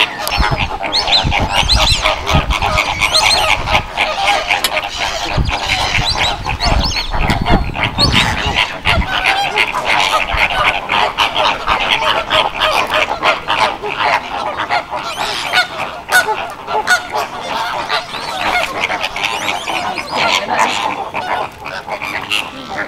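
A flock of flamingos calling all together: a continuous, loud, goose-like honking and gabbling of many overlapping voices. A low rumble sits under the calls for roughly the first nine seconds.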